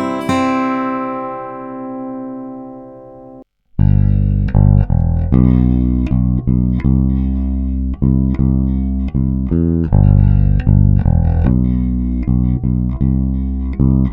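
A strummed guitar chord rings out and dies away. After a short break, a bass guitar plays a line of plucked notes, recorded through a Rupert Neve Designs Shelford Channel preamp.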